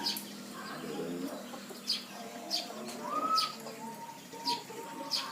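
Perkutut (zebra doves) cooing in drawn-out notes, mixed with sharp high chirps that repeat roughly every half second to a second.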